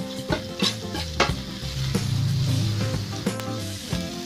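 Chopped garlic, shallots, chilli and tomato sizzling in hot oil in a wok as they are stir-fried. A metal spatula scrapes and clicks against the pan a few times.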